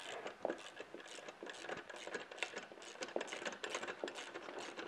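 Light, irregular metal clicks and ticks of a 9/16 wrench and a crescent wrench working a nylock nut off the axle of a hand-crank winch spool.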